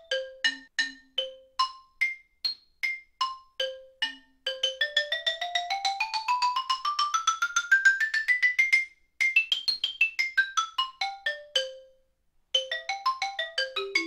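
Xylophone bars struck with hard mallets, first the Freer Solo Xylo pair and then the Malletech OR39R pair. Separate single notes first, then a quick scale that climbs for about four seconds and runs back down, and after a short pause more notes.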